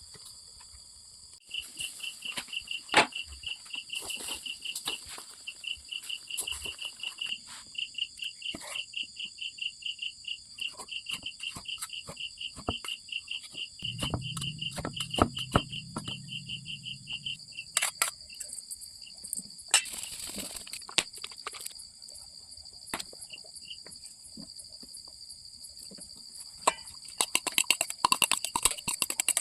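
Insects chirping, a steady high-pitched chorus throughout, with a rapid pulsing chirp that starts about a second and a half in and stops a little past halfway. Scattered sharp clicks and knocks come through it, clustering near the end.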